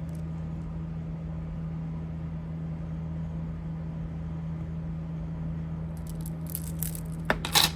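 Steady low hum, then from about six seconds in, jewelry clinking and rattling as beads and pieces are picked through by hand.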